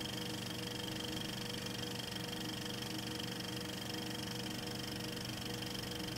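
Steady running of an old film projector, a mechanical whir with hiss and a low hum, used as a sound effect under a film-leader countdown.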